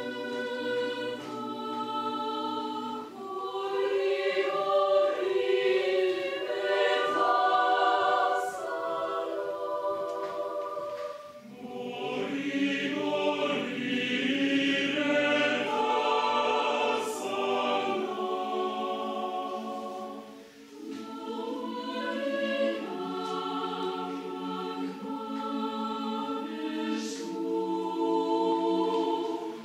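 Mixed choir of men's and women's voices singing in sustained, layered chords. The sound thins out briefly about eleven and twenty seconds in, then the voices come back in.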